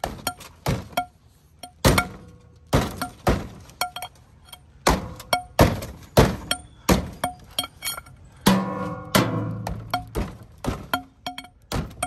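A steel breaker bar striking metal in and around a pickup truck's engine bay, more than a dozen sharp knocks at uneven intervals, each leaving a brief metallic ring.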